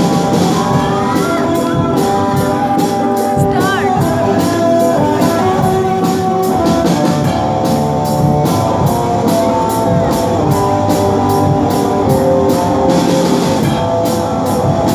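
A live rock band playing through loudspeakers: electric guitars with sustained and bending notes over a drum kit, the cymbals keeping a steady beat.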